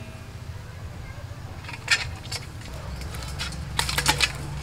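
Live magur catfish (walking catfish) squirming in a stainless steel bowl after salt was put on their heads to stun them. A few brief wet knocks against the metal come about two seconds in and a cluster near the end, over a low steady hum.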